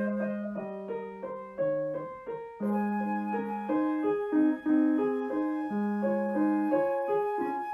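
Instrumental music: a piano playing a melody over held lower notes.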